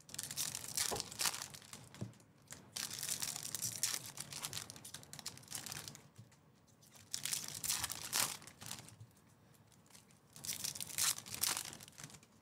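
Trading-card packs being torn open: wrappers tearing and crinkling in about four bursts, with short quiet gaps between them.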